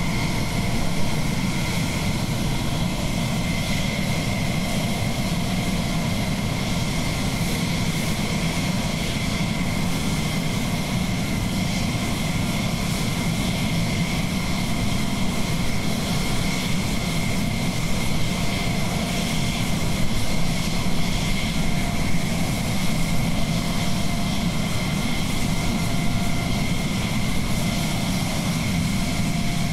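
F-16 jet engine running at taxi idle: a steady high whine over a low rumble.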